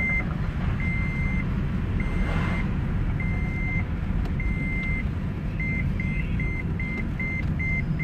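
Vehicle reversing beeper sounding one steady high tone, at first in half-second beeps about once a second, then about five and a half seconds in switching to short quick beeps about three a second. The quickening is typical of a parking sensor closing on an obstacle. Low, steady engine and road rumble runs underneath.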